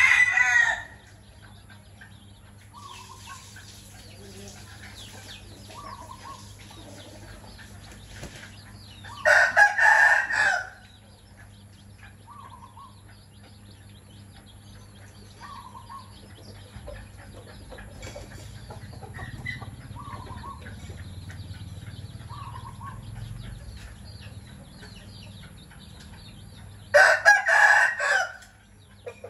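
A rooster crowing three times: at the start, about ten seconds in and near the end, each crow about a second and a half long. Between the crows, a hen's short soft clucks repeat every second or two, the call a mother hen makes to her chicks at food.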